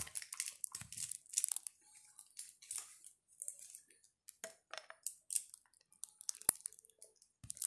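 Close handling noises of a container of bleach being shaken and squeezed to get drops out: irregular crinkling, rustling and light scraping, with a sharp click about six and a half seconds in. The bleach is not coming out.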